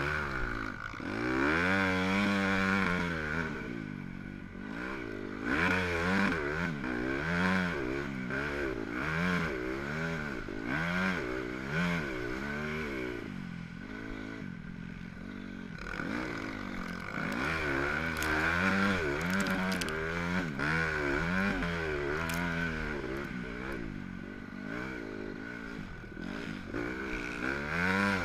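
Dirt bike engine heard from the rider's own machine, revving up and dropping back again and again as the rider accelerates and shuts off along the track.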